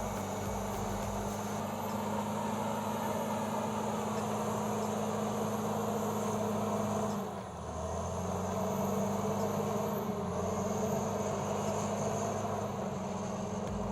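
Caterpillar D7 bulldozer's diesel engine running steadily; about halfway through its note drops briefly and then picks up again.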